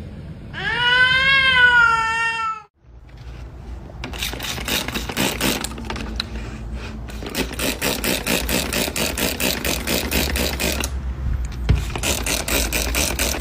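A cat meowing: one long call that rises and falls, about half a second in. After a sudden cut it is followed by a longer stretch of dense, rapid crackling noise.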